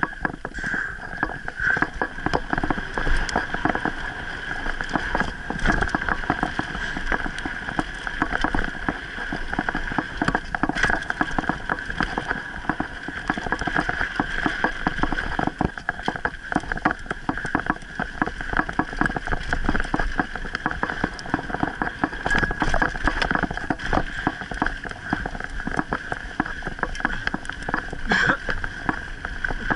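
Mountain bike rattling over a rough dirt and gravel trail, heard through a handlebar-mounted camera: a constant, dense clatter of jolts from the bike and its tyres on the loose surface.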